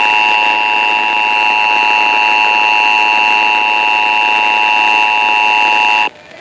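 Emergency Alert System two-tone attention signal (853 and 960 Hz) sounding steadily and cutting off suddenly about six seconds in. It is the alert tone that opens a statewide required monthly test message.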